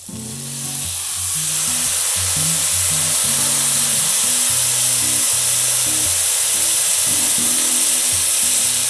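Mushrooms in a very hot frying pan sizzling and hissing loudly as vegan cream is poured in to deglaze them. The hiss swells over the first second and then holds steady.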